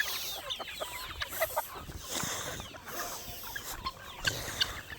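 A flock of chickens clucking, with many short calls overlapping one another.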